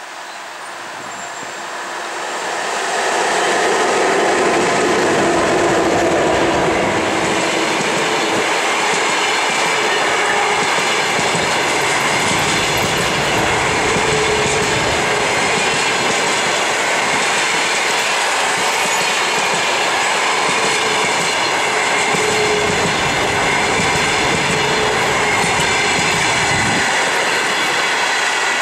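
EP1M electric locomotive and a long train of passenger coaches running past close by: the sound builds over the first three seconds as the locomotive arrives, then holds as a steady loud rumble of coach wheels on the rails, with clickety-clack over the rail joints and a faint steady whine over it.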